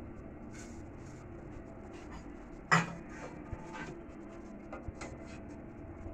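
Rosogolla boiling in sugar syrup in a steel pot on a gas stove: a steady low hiss with faint irregular crackling and popping of bubbles, and one sharp knock a little under three seconds in.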